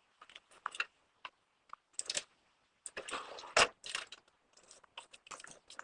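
Scattered clicks and knocks of handling in a car, with a louder knock about three and a half seconds in.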